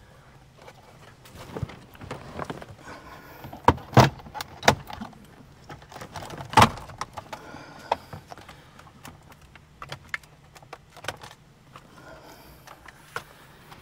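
Plastic retaining clips of a Mazda CX-5's upper dash panel snapping loose as the panel is pulled free by hand. There are several sharp snaps, the loudest a cluster about four seconds in and one more a little after six seconds, with plastic rattling and handling noise between them.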